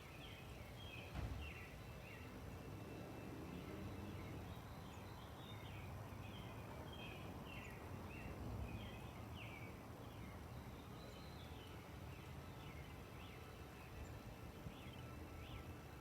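Birds chirping faintly and repeatedly over a low steady background rumble, with a single brief knock about a second in.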